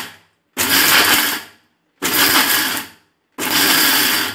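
Indian mixer grinder (mixie) run in short pulses on its reverse setting, grinding roasted peanuts with chilli, tamarind and salt in a large steel jar. Three bursts of about a second each with brief gaps, after the tail of a previous burst fades at the start. The on-off pulsing keeps the grind coarse without the peanuts releasing their oil.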